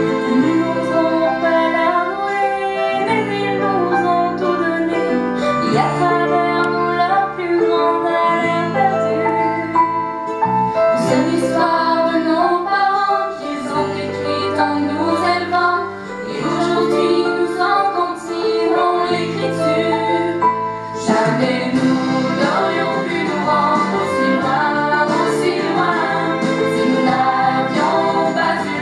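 A song: a female voice singing over piano chords.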